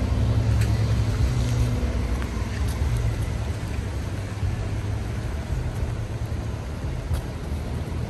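City street traffic: a low engine rumble from nearby vehicles, strongest in the first couple of seconds and then easing, over a steady hiss of street noise.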